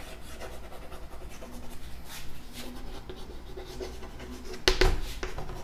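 Chalk writing on a chalkboard: a run of faint, irregular scratches and taps as letters are formed, with a louder tap near the end.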